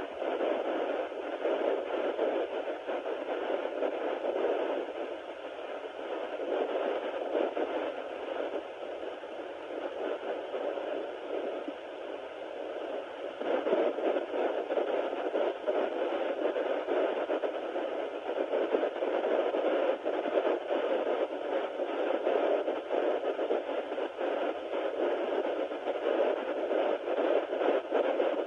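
Sonoline B handheld fetal Doppler's speaker giving a steady, static-like whooshing hiss, growing louder about halfway through. Whether it is picking up the fetal heartbeat is uncertain; the owner is unsure herself.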